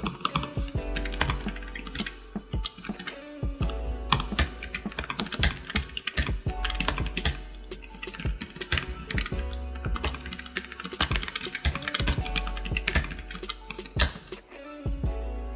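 Fast typing on a Keychron K7 low-profile 65% mechanical keyboard: a steady stream of quick, uneven key clicks, over background music.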